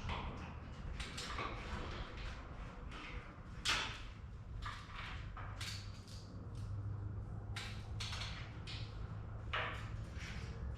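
Irregular knocks, clicks and scrapes of handling and work, the strongest about a third of the way in, over a steady low hum.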